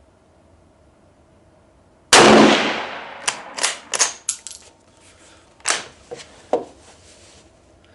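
A single rifle shot from a Yugoslavian M48 Mauser bolt-action rifle in 8mm Mauser (7.92×57), about two seconds in, with a short ringing decay. It is followed by a run of sharp metallic clicks and clacks, the bolt being worked to eject the case and chamber the next round.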